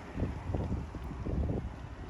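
Wind buffeting the microphone outdoors, making irregular low rumbles and gusts.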